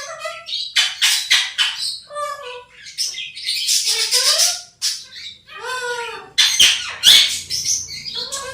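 Pet parrot squawking and chattering: a run of harsh screeches mixed with short pitched, bending calls. The loudest harsh squawks come about a second in, around four seconds in and near seven seconds.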